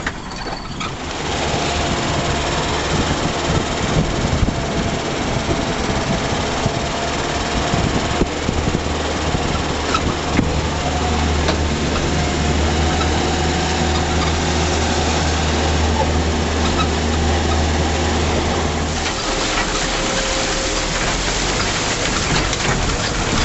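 Land Rover driving off-road, its engine running with a steady low drone and occasional knocks from the body. About nineteen seconds in it wades into the river and water splashes against the vehicle.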